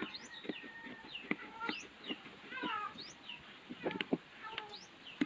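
Birds chirping in short, repeated rising calls, with sharp clicks and scrapes of a screwdriver on the small metal screws of a metal dome tweeter; the loudest clicks come about four seconds in.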